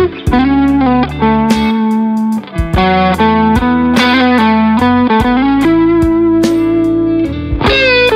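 Fender Custom Shop 1961 Stratocaster electric guitar with single-coil pickups playing a lead melody of single notes, with string bends sliding the pitch up and a long sustained note about six seconds in. It plays over a backing track with drums and bass.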